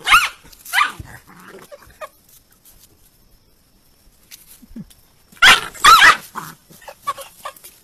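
Puppy yelping in high, falling cries as a rooster attacks it: two cries at the start, then a burst of several about five and a half seconds in.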